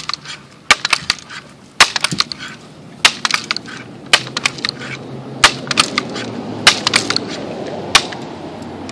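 Multi-pump BB air rifle being pumped up by hand: about seven pump strokes, each ending in a sharp clack roughly every second and a bit, with smaller clicks and rustling between.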